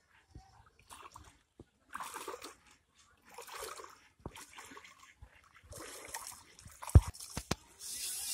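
Shallow pond water splashing and sloshing in short bursts as a clay pot is pushed through it by someone wading. A single sharp knock about seven seconds in.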